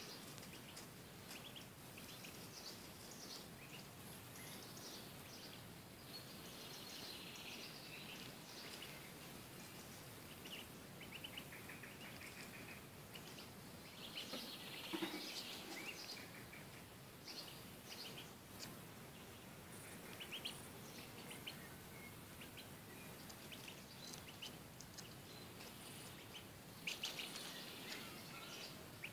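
Faint, scattered high chirps and peeps of small birds, coming in clusters every few seconds over a steady background hiss.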